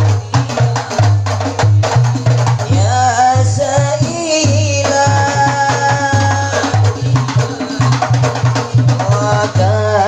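Hadroh music: frame drums and a deep bass drum keep a steady, driving rhythm, with a sung melodic line that comes in around the middle and again near the end.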